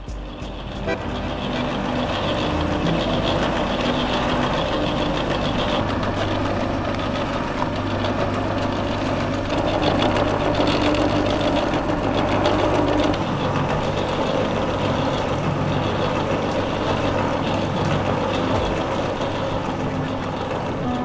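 Belt-driven bakery dough mixer running steadily, its motor humming and the mixing arm churning flour and dough.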